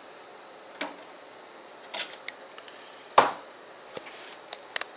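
Scattered sharp clicks and knocks of a screwdriver and screws on a PC case's side panel as the cover is screwed back on, the loudest knock about three seconds in and a quick cluster of clicks near the end.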